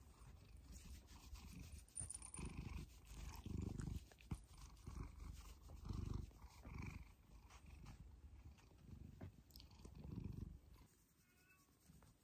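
Domestic cat purring close up while being stroked, in low swells that rise and fall with its breathing, with light rubbing clicks as its face brushes the microphone. It fades away near the end.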